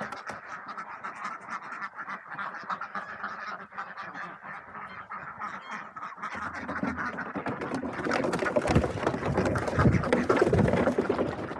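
Ducks quacking, mixed with rubbing and knocking noise from a tiny camera worn by a walking cat. The noise grows louder and heavier in the last few seconds.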